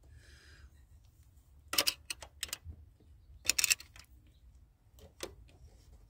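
A screwdriver clicking against the valve spring retainer and keepers of a GM 3800 Series II engine while the keepers are worked loose. The sound is a handful of light, sharp metal clicks, some in quick pairs, spaced about a second apart.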